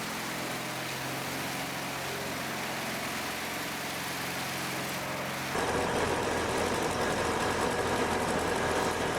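Engine of heavy machinery running steadily with an even hum. About five and a half seconds in it cuts abruptly to a louder, rougher machine engine sound.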